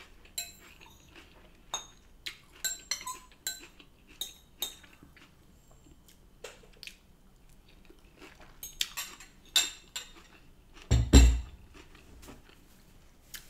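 A metal fork clinking and scraping against a bowl, in short ringing clinks, with quiet chewing between. Near the end comes a heavy thump, the loudest sound.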